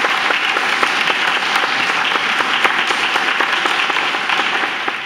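Audience applauding steadily in a hall, a dense patter of many hands clapping.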